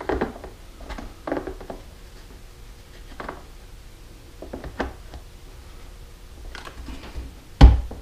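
Hard plastic clicking and knocking as a black plastic part is worked and pressed into the top of a RIDGID shop vacuum's plastic motor head, with one sharp, louder knock near the end.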